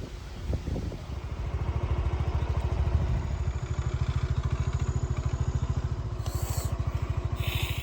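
Small scooter engine running, with a rapid, even putter of firing pulses. Two brief hissy bursts come near the end.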